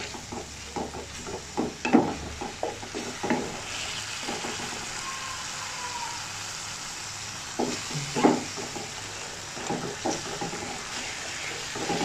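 Chilli-ketchup sauce sizzling in hot oil in a metal frying pan while a wooden spatula stirs it, scraping and knocking against the pan in clusters of strokes, with a pause in the stirring midway.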